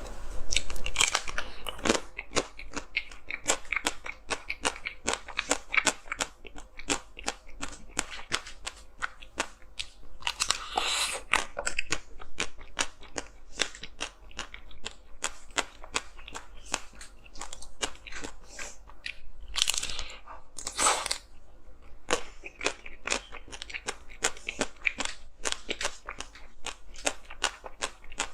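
Close-miked crunching and chewing of hard frozen ice, a dense run of crackling crunches with a couple of louder bites about a third and two-thirds of the way through.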